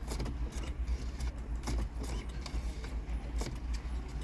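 Steady low rumble inside a car, with scattered light clicks and taps of keys and a key fob being handled.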